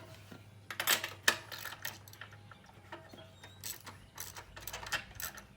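Metal hand tools being handled: scattered clicks, clinks and light knocks in uneven clusters, the sharpest knock about a second in, like a socket wrench and sockets being picked up and worked on a small engine.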